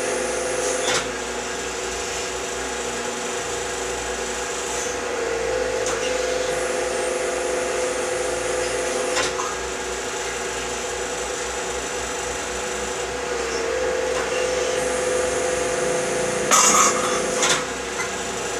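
Hydraulic power pack of a deep-drawing press running with a steady whine, its tone changing twice as the ram strokes. There are a few short knocks and a louder metallic clatter near the end.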